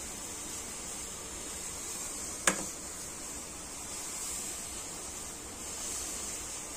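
Steady background hiss, with a single sharp clink of a metal spoon against steel about two and a half seconds in.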